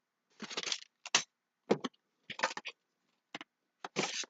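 A cardboard box and its contents being handled, a run of about six short rustles and clacks in four seconds.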